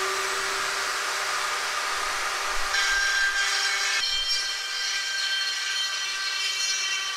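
A Dremel rotary tool with a carbide burr grinding into a cast aluminum oil pan, running at a steady high-speed whine while it cleans out the cracks before welding. The sound turns harsher and higher about three seconds in.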